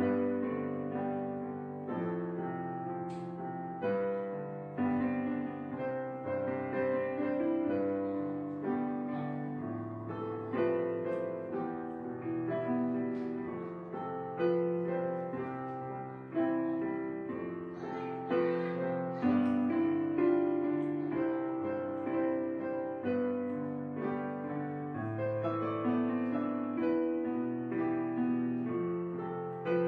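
Background piano music, its notes struck and left to fade.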